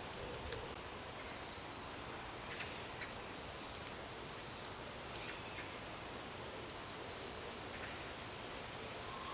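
Outdoor field ambience: a steady hiss of wind with a few faint, short, high bird chirps and scattered small rustles and clicks.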